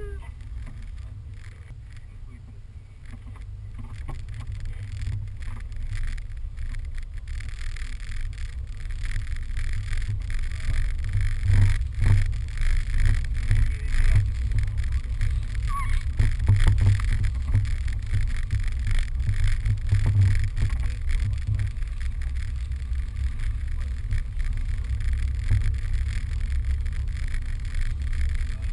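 Steady low rumble of a sled sliding down a packed-snow track, mixed with wind buffeting the microphone; it grows louder after the first few seconds and keeps on unevenly.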